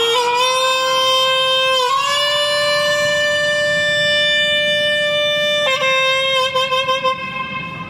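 Saxophone playing a slow melody of long held notes. About two seconds in it scoops up to a slightly higher note and holds it for nearly four seconds, then steps down to a lower, wavering note that fades near the end.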